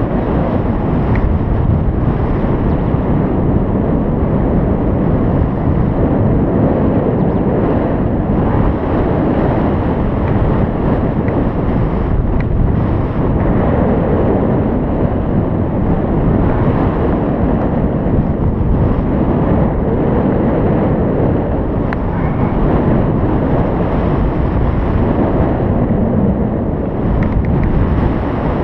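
Loud, steady wind rushing over the microphone: the airflow of a paraglider in flight.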